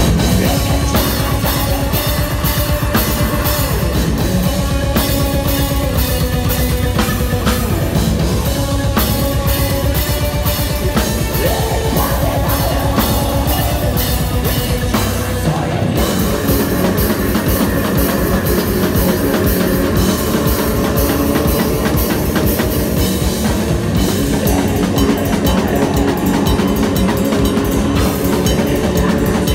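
Black metal band playing live and loud: fast, dense drumming under electric guitar, with a brief break about halfway through.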